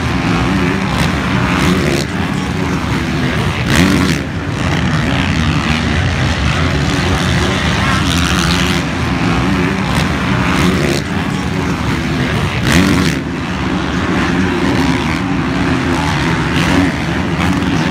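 Several motocross dirt bikes racing, their engines revving up and down continuously as riders accelerate and shift, with louder swells about four and thirteen seconds in.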